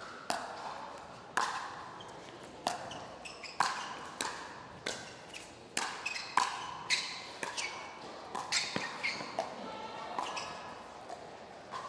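Pickleball rally: paddles striking the hard plastic ball and the ball bouncing on the court, an irregular series of sharp pops about one every half second to a second.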